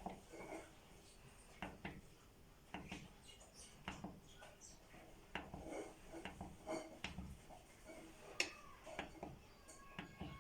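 Faint, scattered light clicks and knocks of small hard objects being handled, a few sharper ones near the end.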